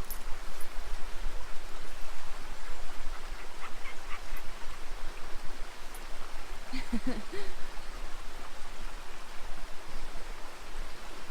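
Waterfall and fast-flowing stream water rushing steadily, with a brief faint voice about two-thirds of the way through.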